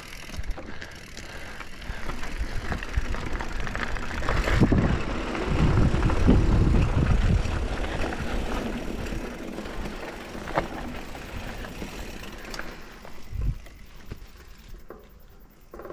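Mountain bike rolling down a dirt trail: tyres crunching over dirt and stones and the bike rattling, with wind buffeting the camera microphone, heaviest for a few seconds in the middle.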